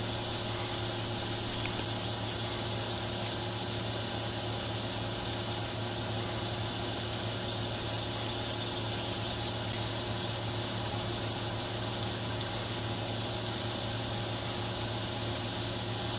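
Steady low hum with an even hiss over it, unchanging throughout, with no horn blast or other distinct event.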